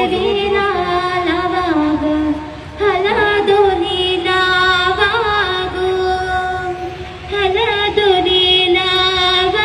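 A female voice singing an Agri-Koli dhavala, the traditional wedding song, unaccompanied, in long held, ornamented phrases with short breaths about two and a half and seven seconds in.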